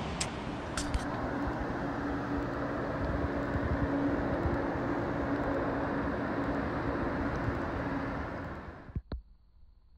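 Steady rushing noise of a river's flowing water, with two light clicks about a second in; it fades out near the end.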